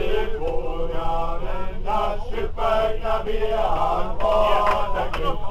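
A group of men singing a chant together with long held notes, over the steady low rumble of the moving train.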